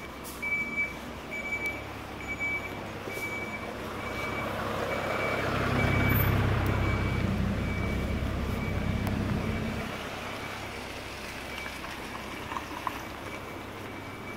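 A truck's reversing alarm beeping steadily, about two short high beeps a second. Under it a motor vehicle's engine rumble swells, is loudest a little before the middle, and fades away about two thirds of the way through.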